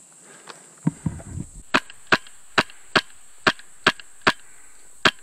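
Airsoft rifle firing in quick semi-automatic shots, about two to three a second, eight sharp cracks starting about a second and a half in, after a few low knocks as the rifle is raised. A steady high-pitched whine runs under the shots.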